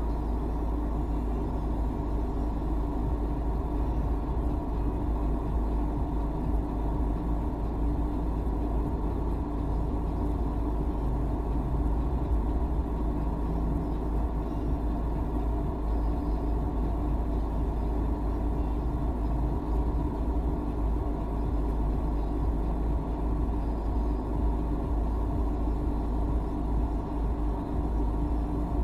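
Idling traffic heard from inside a stopped car: a steady low engine rumble with a constant hum, unchanging throughout.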